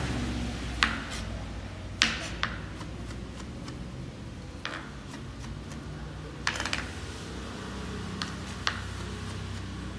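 Chef's knife chopping on a cutting board: sharp, irregular knocks of the blade striking the board, about seven in all, a second or two apart, over a steady low hum.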